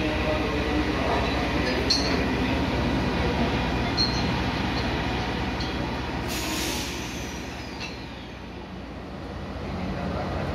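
Freight train of ZZOW ballast hopper wagons rolling slowly past: a steady rumble with a few short high wheel squeaks. About six seconds in there is a brief hiss, and the sound then drops quieter.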